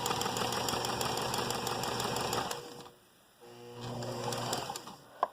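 Kenmore sewing machine running with its motor humming and mechanism ticking, its top mechanism freshly oiled. It stops a little over halfway through, runs again briefly, and ends with a single sharp click.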